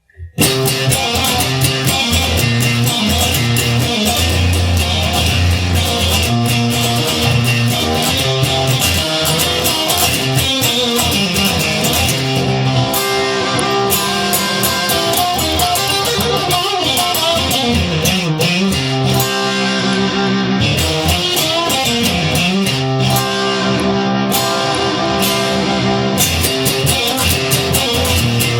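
Instrumental blues song opening: guitar and bass playing, starting suddenly about half a second in and keeping a steady level.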